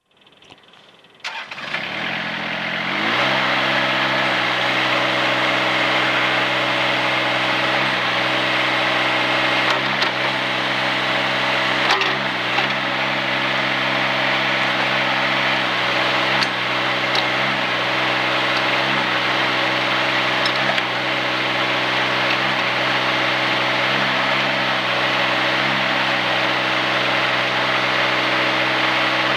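SDLANCH SDLE20 mini excavator engine starting about a second in, picking up over the next couple of seconds and settling into a steady idle.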